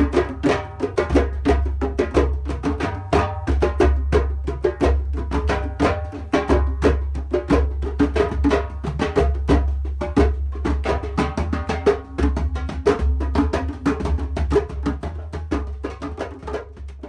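Percussion music: rapid hand-drum and wood-block strikes with pitched notes over a steady low drone.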